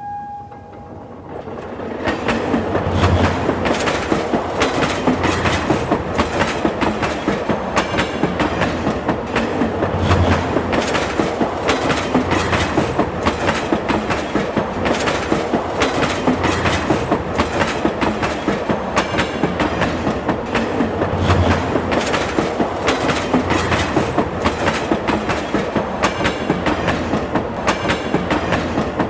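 A train passing close by, its wheels clattering over the rail joints in a quick, steady rhythm over a low rumble. The tail of a horn blast fades out in the first second.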